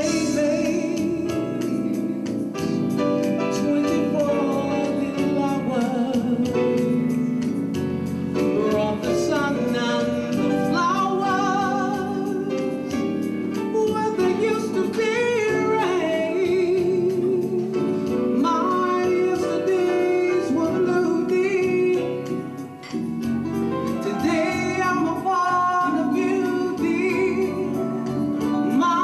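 A small band playing a Top 40 pop song: a voice singing with vibrato over instrumental backing.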